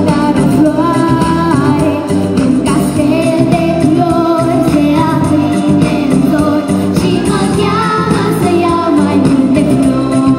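A girl singing a pop song into a handheld microphone over backing music, amplified through stage loudspeakers.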